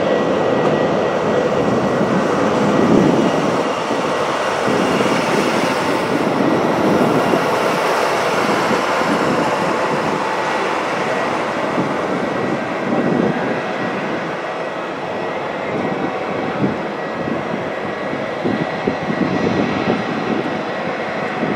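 Four PS-90A turbofan engines of an Ilyushin Il-76TD-90VD freighter running at taxi power. It is a steady jet rumble and hiss, with a faint steady high whine.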